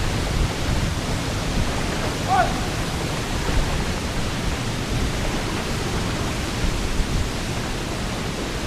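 Steady rushing of a jungle waterfall and its stream, close to the microphone. A brief call is heard about two seconds in.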